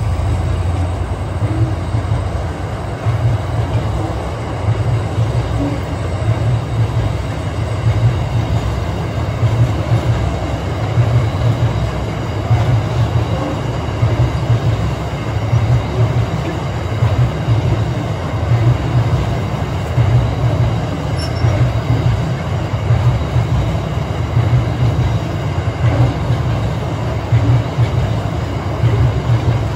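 Covered hopper wagons of a freight train rolling across a rail bridge: a steady low rumble with a heavier beat about every one and a half seconds.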